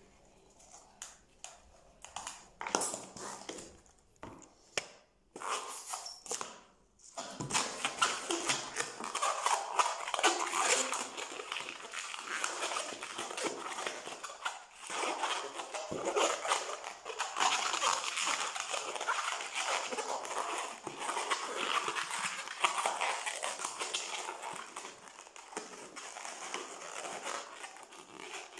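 Latex modelling balloon squeaking and rubbing under the fingers as it is twisted into small bubbles. There are a few separate short squeaks at first, then from about seven seconds in a dense, continuous squeaking and crackling that fades a little near the end.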